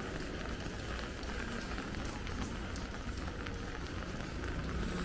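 Rain falling steadily, with many small drops ticking on nearby surfaces, over a low steady rumble.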